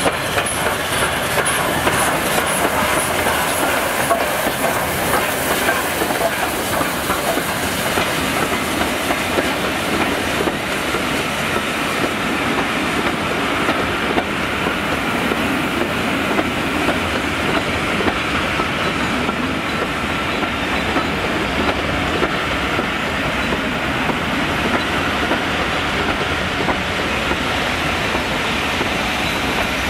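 Passenger train hauled by the Peppercorn A1 steam locomotive 60163 Tornado passing close by. Its coaches roll past with a steady clatter of wheels on the rails.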